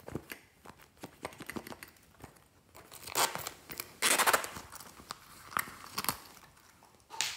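Handling a red faux-leather zip pouch: light clicks and rustles of the material, with the zipper pulled open in two rasping strokes about three and four seconds in, and a short rustle near the end.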